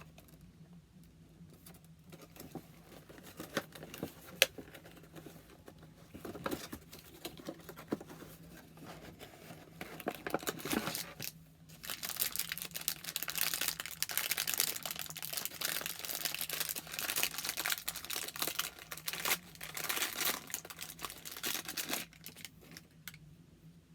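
Action figure packaging being opened by hand: light clicks and handling at first, then, from about halfway through, a long stretch of loud crinkling and tearing of plastic and cardboard.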